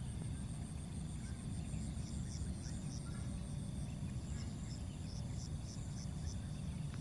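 Insects chirping in a fast, even, pulsing trill that stops about four seconds in, with other scattered chirps, over a steady low rumble.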